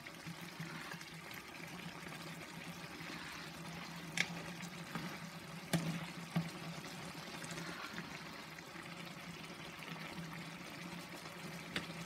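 Brown stew sauce simmering in a skillet while a metal spoon scoops it up and pours it back over the fish, with a few sharp clinks of the spoon against the pan.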